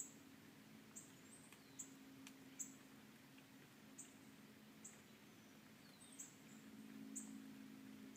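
Faint, sharp high-pitched chirps, each with a short downward slur, recurring irregularly about once a second over a low steady hum.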